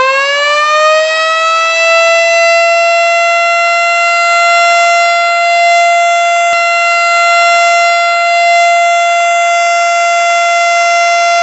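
Civil-defence-style siren of the kind sounded in Ramadan to signal breaking the fast and imsak. It finishes winding up in pitch about two seconds in, then holds one steady, loud, high wail.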